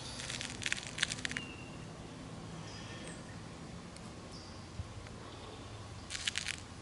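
Small sharp clicks of the Steyr LP50 air pistol's five-shot magazine being reloaded with pellets and handled: a quick cluster of clicks at the start and another short cluster near the end.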